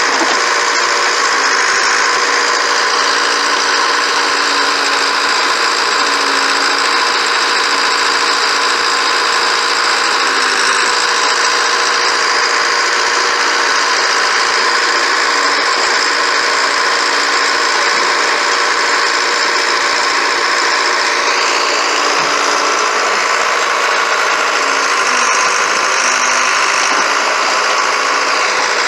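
Allis-Chalmers 715C backhoe engine running steadily, with slight changes in pitch a few times.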